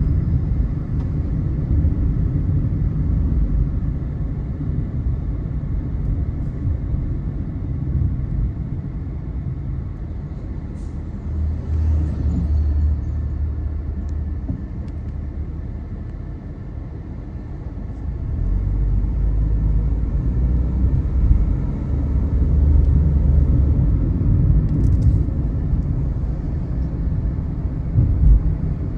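Car driving on the road: a steady low rumble of engine and tyre noise, swelling and easing a few times as the car changes speed.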